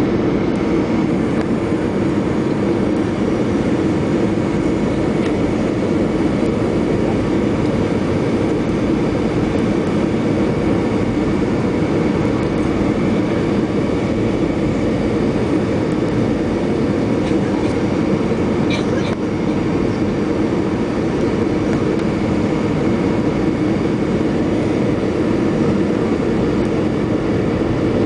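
Cabin noise of an Airbus A320-232 on final approach, heard beside the wing: its IAE V2500 turbofan running with the rush of air past the fuselage. It is a loud, steady rumble with a faint steady whine on top.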